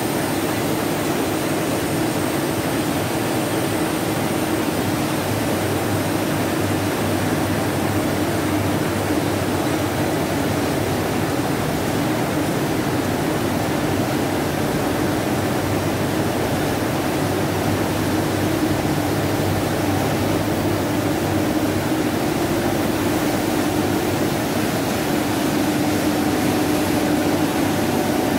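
1998 OMET Multifilm 520 flexo label printing press running in production: a steady, even mechanical noise of its turning rollers and running web, with a constant low hum underneath.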